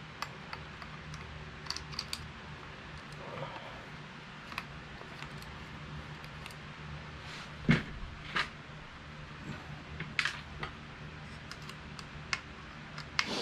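Small metal clicks and taps, scattered and irregular, as bolts are handled and threaded in to mount a bicycle disc-brake caliper adapter, with two sharper clicks in the second half. A low steady hum runs underneath.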